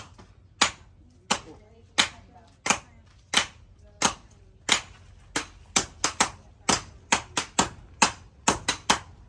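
Hand-hammer blows on steel on an anvil, forging a knife blade. Each blow is sharp and rings briefly. The blows come evenly about every two-thirds of a second, then speed up about halfway through to roughly three a second, some in quick pairs.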